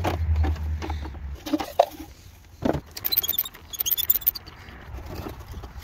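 Light clicks and knocks of a plastic headlight assembly being handled and pulled free. About three seconds in come two short runs of quick ticking from a ratcheting screwdriver turning out the parking-lamp fastener.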